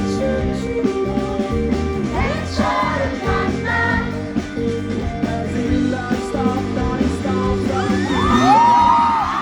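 Rock band playing live with a lead singer; near the end the voice holds long high notes.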